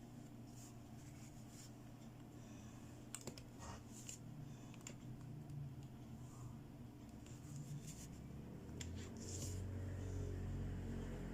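Scattered light clicks, taps and scratches of small plastic toy pieces and packaging being handled, with a low hum that grows louder near the end.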